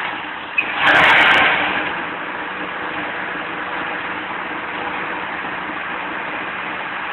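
Forage chopper (silage cutter) running steadily as it chops fresh clover and blows it up its discharge pipe, with a steady hum under a rushing noise. A short click about half a second in, then a louder surge of chopping for about a second as a handful of clover goes through.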